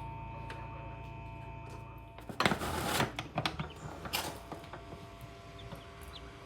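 Objects being handled and shifted, with rustling and clattering bursts about two and a half and four seconds in. A few short high chirps, typical of birds, come near the end.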